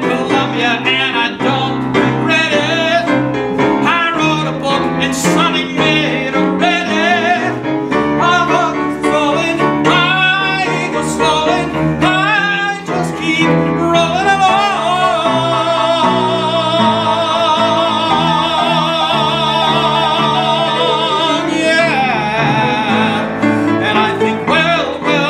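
A man singing a show-tune solo with vibrato over an instrumental backing, holding one long note for about six seconds past the middle.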